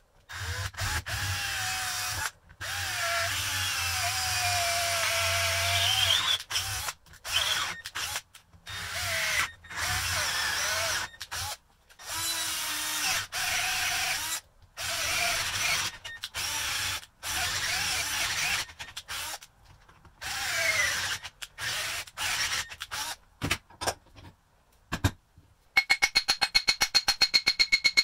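Cordless drill boring out old wood packed in the socket of an antique slick chisel. It runs in repeated bursts with stops between, and the motor's whine sags and recovers as the bit loads up. Near the end comes a fast, even run of clicks.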